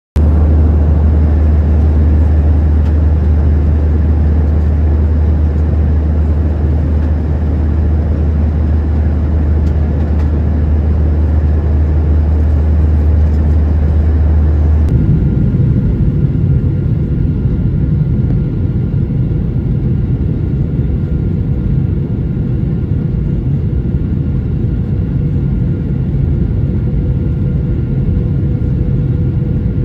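Steady roar of a Boeing 737's cabin in flight, with a deep rumble. About halfway through it changes abruptly to the sound by a window over the engine during the descent: a lighter rush with a steady engine whine over it.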